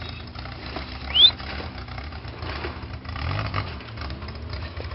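Off-road cage buggy engine running with a steady low rumble, its pitch rising briefly around three seconds in. A short, high, rising squeal about a second in is the loudest sound.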